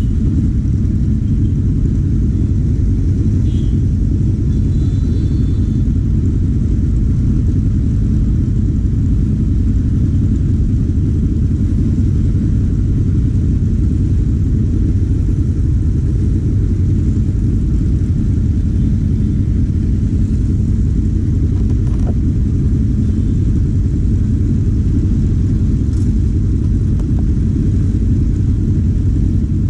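Four-cylinder engine of a vehicle on the move, running steadily with a loud, even low rumble.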